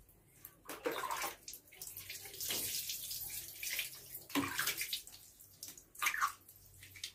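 Water poured from a plastic dipper, splashing over a baby monkey and onto a wet concrete floor in several separate pours, with water scooped from a plastic basin between them.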